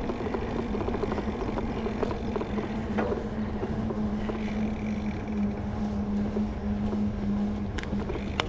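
Mountain bike's knobby tyres rolling on wet pavement, giving a steady hum over a low rumble, with a few faint clicks.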